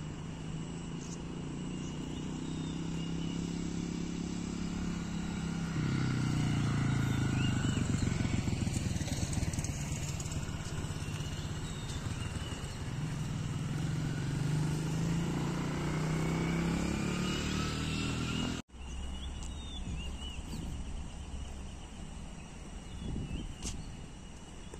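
Road traffic: motor vehicle engines running and passing, a low drone that swells and fades with some rising pitch. About three-quarters through it cuts off suddenly to a quieter outdoor background with faint chirps.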